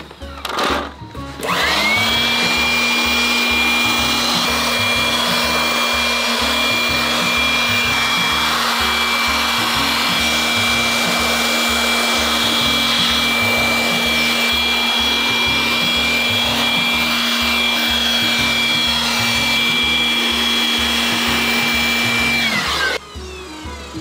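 Stanley handheld electric blower running: it spins up about two seconds in to a steady high whine over rushing air, holds for about twenty seconds, then winds down near the end.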